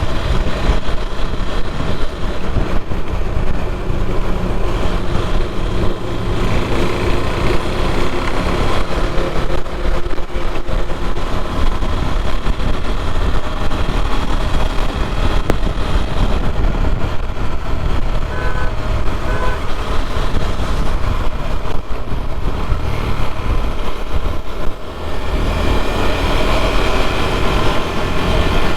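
KTM Duke 390's single-cylinder engine running on the move, with wind and road noise, the engine note rising and falling with the throttle. Near the end the sound dips briefly, then the engine comes back stronger and deeper.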